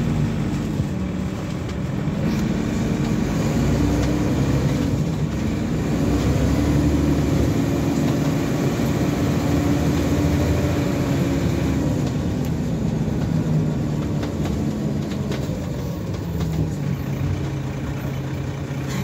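Dennis Trident double-decker bus's diesel engine and drivetrain running, heard from inside the lower deck as the bus drives. The engine note climbs over the first half, then falls away, with a few light rattles.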